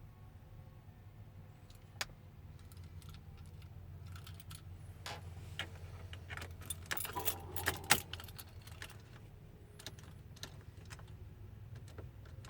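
A bunch of truck keys jangling and clinking, a flurry of sharp clicks that is busiest and loudest a little past the middle, over a steady low hum.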